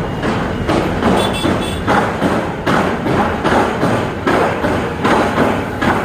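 Loud street noise with a run of irregular knocks and thuds, a few a second.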